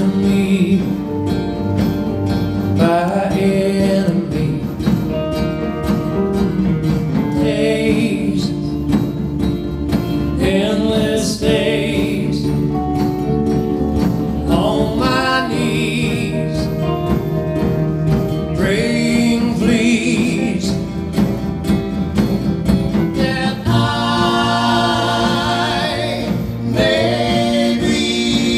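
A small country-rock band playing live, with drum kit, acoustic guitar and electric guitars. A gliding lead melody rises over the band every few seconds.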